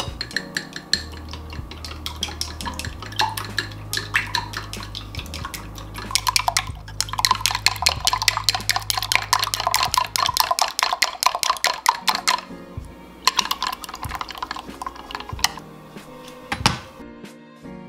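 Wooden chopsticks beating an egg in a small drinking glass: a rapid run of clicks and taps against the glass, fastest and loudest in the middle, stopping about twelve seconds in, followed by a few sparser taps.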